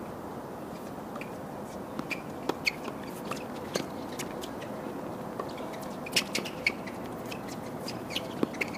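Steady outdoor ambience on a hard tennis court between points, with scattered short sharp ticks that come in small clusters about two, six and eight seconds in.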